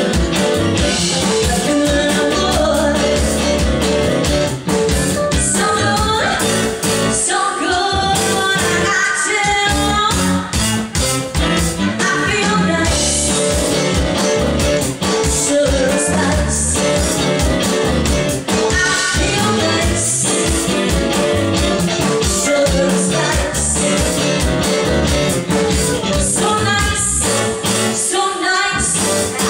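Rock-and-roll music with a singer, guitar and a drum kit playing a steady beat.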